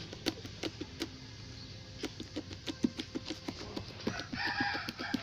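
Slime being squeezed and kneaded by hand, making irregular sticky clicks and small pops.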